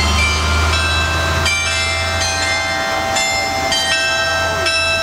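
Slow melody of ringing bell-like chime notes, about eight notes each held up to a second, with a bus engine's low rumble underneath that fades away about halfway through.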